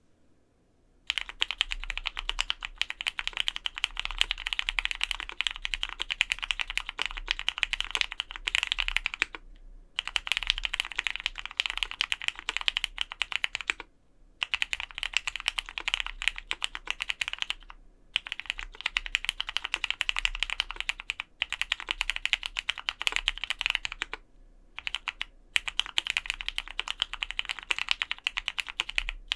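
Continuous typing on a Vega mechanical keyboard fitted with Krytox-lubed, broken-in Cherry MX Black Hyperglide linear switches, GMK keycaps, an aluminium plate and two layers of case foam. It starts about a second in and comes in runs of rapid keystrokes broken by several short pauses.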